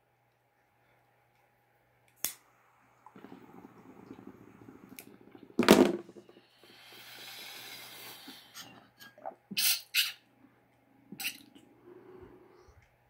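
A lighter clicks, then water bubbles through the honeycomb percolators of a tall glass bong as smoke is pulled through it. About halfway through comes a loud sudden rush of air, followed by a long breathy inhale and short puffs of breath near the end.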